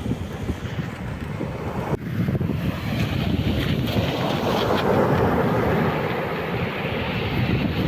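Stormy sea surf washing on the shore, with wind buffeting the microphone; a wave rushes in louder about halfway through and then eases off.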